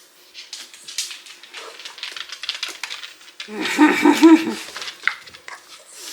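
Quick scrabbling and rustling, like paws on the floor and bedding during play, then about three and a half seconds in a miniature dachshund gives a wavering, drawn-out whine-like vocalization lasting about a second, the loudest sound here.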